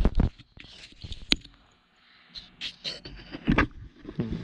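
Handling noise: scattered knocks, clicks and scrapes of tools and the camera being moved, with one sharp click about a second in and a louder knock near the end.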